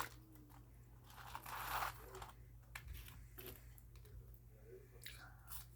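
Close-miked eating sounds: crunching and crinkling, with a louder crunch about a second and a half in and scattered small clicks after it.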